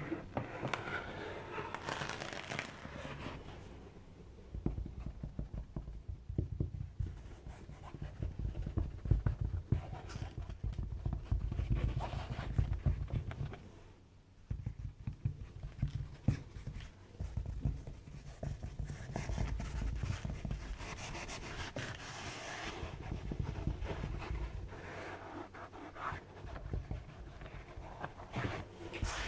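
Close-miked scratching and crackling, dense fine clicks over low rumbling thumps that come in uneven waves, with a brief lull about halfway through.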